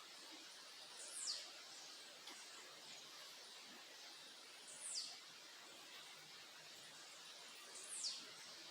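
A bird gives a short, high call that slides quickly downward, three times, about three seconds apart, over a faint steady hiss.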